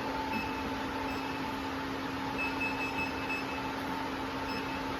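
Steady electric hum of an automatic label-attaching sewing machine standing powered up, with a run of short, faint high-pitched tones about halfway through.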